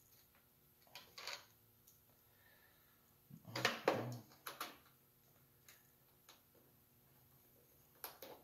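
Small metal clicks and clinks as the bolt and nut are worked loose from a riding mower's battery terminal, in scattered bursts, the loudest cluster about three and a half to four seconds in.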